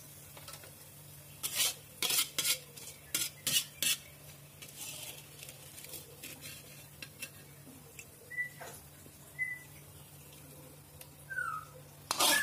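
Metal slotted spatula scraping and clanking against an iron wok while scooping fried anchovies out of the oil: a run of sharp scrapes and knocks about a second and a half in, then lighter taps. A few short high chirps near the end.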